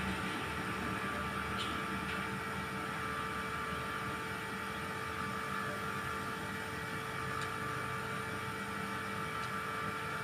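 Steady electrical or mechanical hum holding several fixed tones over a noise bed, with a few faint clicks.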